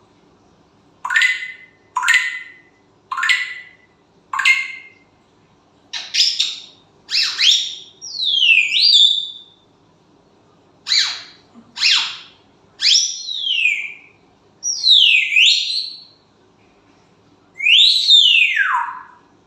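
Parrot whistling and calling: four short, sharp calls about a second apart, then a run of longer whistles that slide down and back up in pitch, and a long falling whistle near the end.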